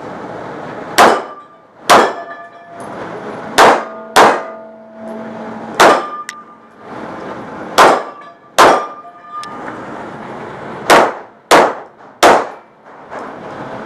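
Glock 17 9mm pistol firing about ten shots at an uneven pace, some as quick pairs, echoing in a concrete indoor range; a few shots are followed by a brief ringing tone.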